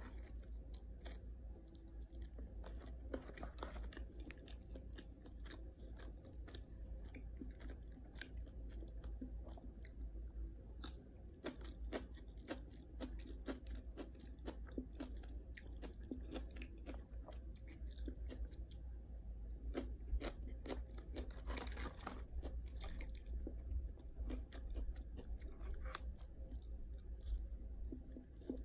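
Close-up chewing of kimchi, with many small crisp crunches and a louder run of them about two-thirds of the way through, over a low steady hum.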